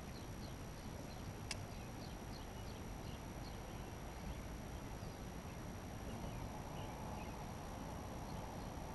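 Low steady background noise outdoors on the river, with faint light ticks and one sharp click about a second and a half in.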